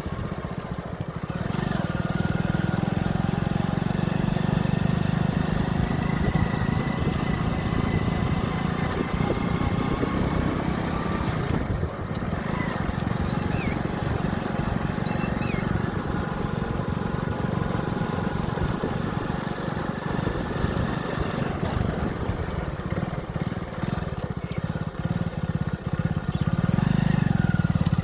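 Motorcycle engine running on the move, steady and low, with a short dip in level about twelve seconds in and louder again near the end.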